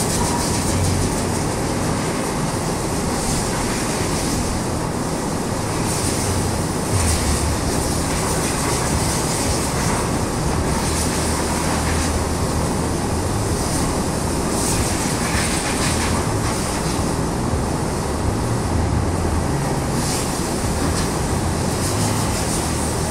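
Large drum fan running, a steady loud rushing with a low hum that rises and falls slightly.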